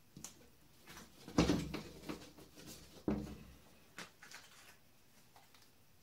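Handling noises of stickers being pressed onto a board: a few soft knocks and rustles, the loudest about a second and a half in and another about three seconds in, with smaller clicks between.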